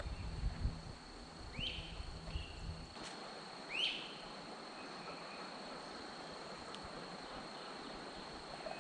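Outdoor ambience of a steady, high-pitched insect drone, with a bird giving two short rising calls about two seconds apart. A low rumble stops about three seconds in.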